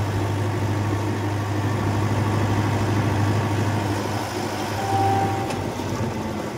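Mahindra tractor's diesel engine running steadily as it drives along a road, a low drone that eases off about five and a half seconds in.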